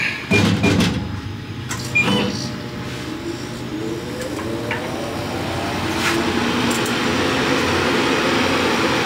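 A few knocks as the gantry and laser head are handled. Then an electric motor comes up to speed: its whine rises in pitch over a few seconds and settles into a steady hum with a rushing, airy noise.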